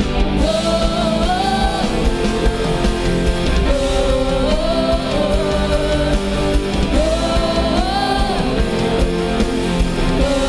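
Live worship band playing a praise song at a steady loud level, with a full band of guitar and drums under a held, gently bending melody line.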